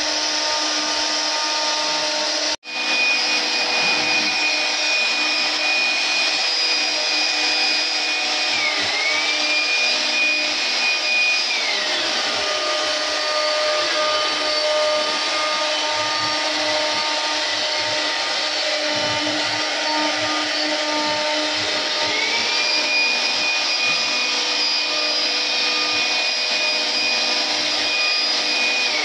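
CNC router spindle running with a steady high whine over machining noise as it carves wood. The whine dips briefly about nine seconds in, falls away in pitch around twelve seconds and climbs back near twenty-two seconds; the sound cuts out for an instant a couple of seconds in.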